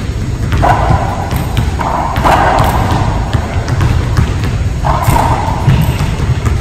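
Racquetball rally: the ball striking rackets and the court walls in a string of sharp hits, echoing in the enclosed court over a constant low rumble.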